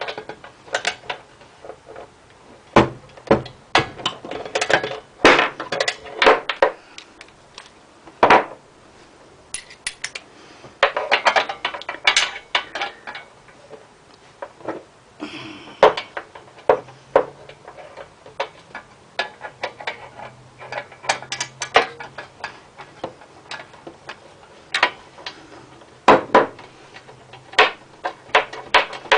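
Hand tools working on metal: a ratchet wrench clicking in short quick runs between irregular knocks and clinks of tools against the engine, as a heat-shield bolt is worked loose on a small engine.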